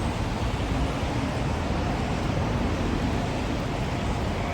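Steady outdoor city street noise with a low rumble and no distinct events.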